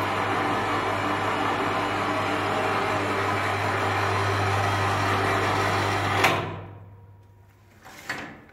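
Electric gearmotor and chain drive of a profile pipe bender running steadily with a low hum while its rollers roll a steel profile tube into an arc. About six seconds in, a click and the drive stops and winds down, followed by a couple of short knocks near the end.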